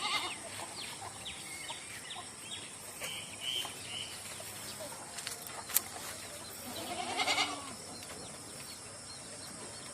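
A goat bleats once, about seven seconds in, the loudest sound here. Before it come scattered short chirps and a single sharp click, over a faint steady high-pitched tone.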